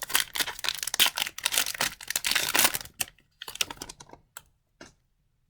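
Hockey card pack wrapper being torn open and crinkled by hand: a dense crackling for about three seconds, then a few scattered rustles and clicks as it dies away.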